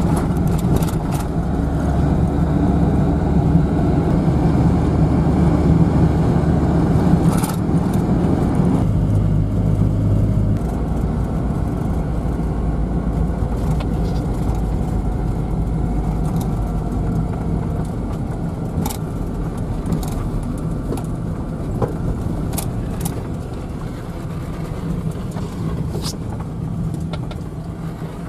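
Toyota HiAce campervan driving, its engine and road noise heard from inside the cab. The rumble is strongest for the first eight seconds, then eases and fades gradually as the van slows, with a few faint clicks in the later part.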